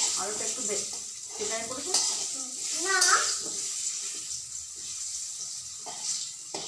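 Potato wedges sizzling in hot oil in an aluminium kadai, with a steel spatula scraping and knocking against the pan as they are stirred; there are several sharp knocks, the loudest about two and three seconds in.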